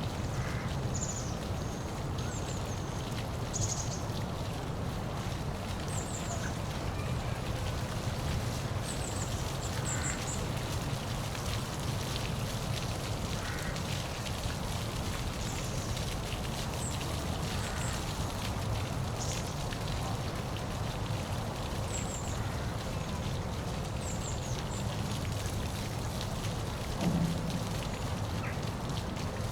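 Steady rushing of a waterfall, with small birds giving short high chirps on and off throughout and a brief low thump near the end.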